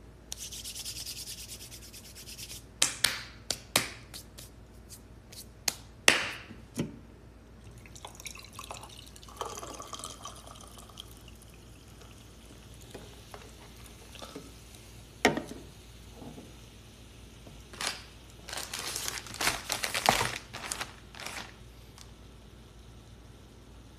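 Drink being mixed in a glass beer mug full of ice: a hiss for the first two seconds or so, then sharp clicks and knocks of a can and the glass being handled, and a can of drink poured into the mug. A busier run of clicks and rustling comes near the end.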